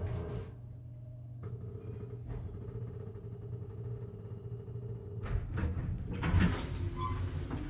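A Schindler-modernized hydraulic elevator car humming steadily as it rides down and levels in at the bottom floor, then a few clicks about five seconds in and a louder rush near the end as its center-opening doors slide open.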